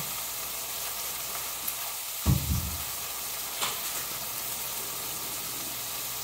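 Steady hiss, with a dull low thump about two seconds in and a faint click about a second later.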